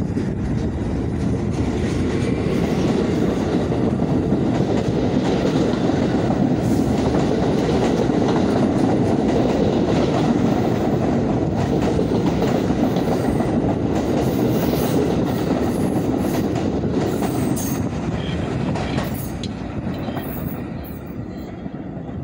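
New York City subway train pulling out and running past along the platform track: a steady rumble of steel wheels on rail with clattering over the rail joints. It fades over the last few seconds as the rear car passes and the train draws away.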